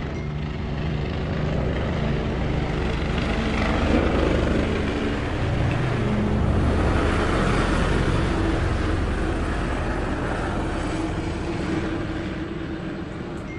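Drone of a passing engine, swelling to its loudest about midway, then fading away.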